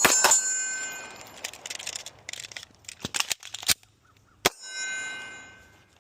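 A rapid string of gunshots, about five a second, ending just after the start, with a metallic ringing that fades away. A few lighter clicks follow, then one last sharp shot about four and a half seconds in, whose ringing dies out near the end.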